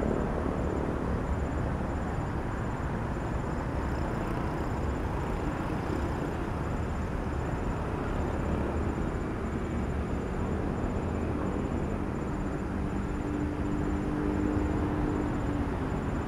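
Diesel-electric locomotive running, a steady heavy engine rumble, with a faint steady tone coming in near the end.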